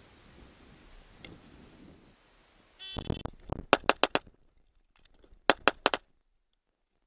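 Shot timer beeps, then a pistol fires two fast strings of four shots each, about a second and a half apart, with very short splits between the shots.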